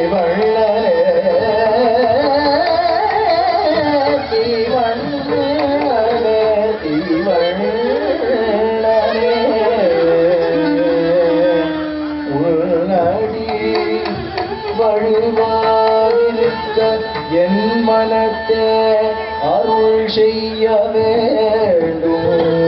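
Live Carnatic music: a sung melody with gliding, ornamented phrases over a steadily held drone, accompanied by instruments and a hand drum.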